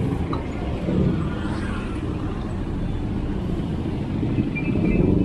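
Busy street traffic: car and motorcycle engines running close by in a steady low rumble, swelling as vehicles pass about a second in and again near the end.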